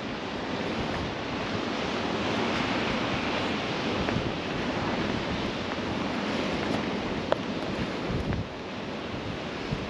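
Ocean surf washing onto a beach in a steady hiss that swells and eases, with wind buffeting the microphone and a single sharp click about seven seconds in.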